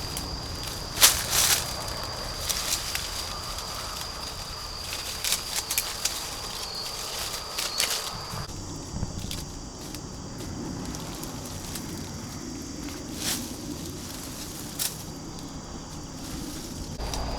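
Scattered sharp snaps and crackles, like something being handled, over a steady high-pitched tone that stops about halfway through and returns near the end.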